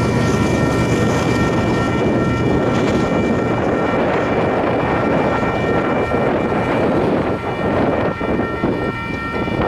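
Railroad grade-crossing bell ringing steadily over wind noise on the microphone and the low rumble of the departing freight train. The bell stops near the end as the crossing clears and the gates go up.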